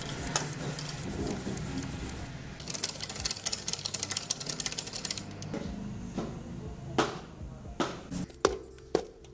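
Coconut half scraped on a hand-cranked coconut grater: a fast, rasping run of clicks for about two and a half seconds, then a few separate clicks and knocks near the end.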